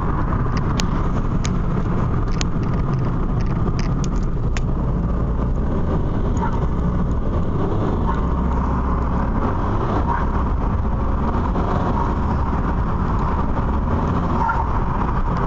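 Cabin sound of a 2008 Peugeot 207 HDi 90 turbodiesel being floored to around 2,000 rpm and then lifted off, with wastegate chatter and turbo flutter over a steady low rumble. A few sharp clicks come in the first five seconds.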